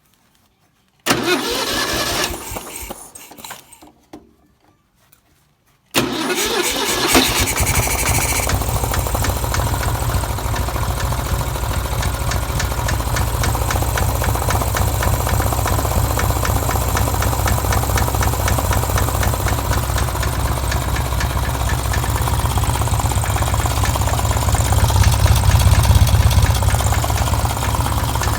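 Robin EY21 engine of a Denyo Handy 200 engine welder being started: a first try catches about a second in, runs briefly and dies away, then about six seconds in it starts again and settles into steady running.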